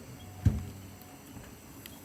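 A single dull, low thump about half a second in, like a knock or bump against something solid, followed by a faint ticking.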